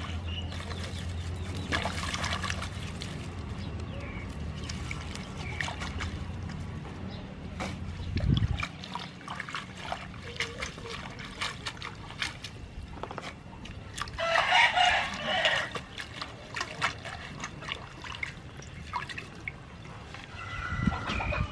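Hands swishing leafy greens and long stems in a steel bowl of water, with splashing and small clicks. A low steady hum stops suddenly about eight seconds in. A rooster crows once, loudly, about fourteen seconds in.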